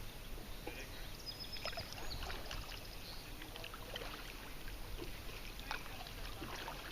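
Kayak paddling on a river: paddle strokes with light splashes and drips of water, and scattered small ticks.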